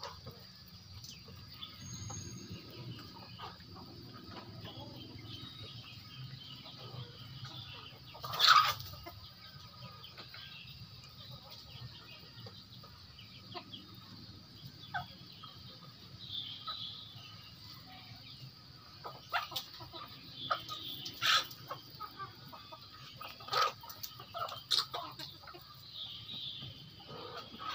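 A flock of free-range native chickens clucking as they peck at scattered feed, with scattered sharp clicks and one loud short noise about eight seconds in.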